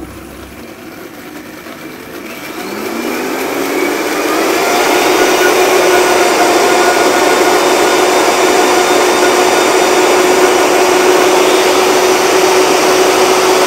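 High-speed blender motor puréeing blanched watercress with its cooking water: it spins up over a couple of seconds with a rising whine, then runs steadily at full speed.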